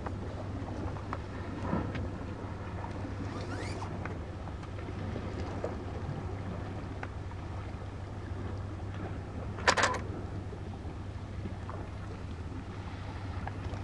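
Steady low engine hum, as of a vehicle idling nearby, with one short sharp high sound about ten seconds in.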